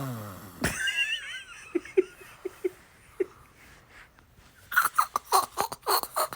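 Laughter: a high, wavering squeal of a voice about a second in, a few short soft laughs, then a quick run of breathy laughs near the end.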